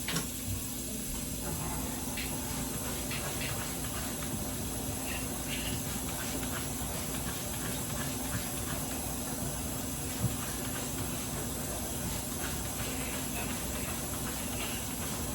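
A steady hiss with scattered light clicks and clinks, one sharper knock about ten seconds in.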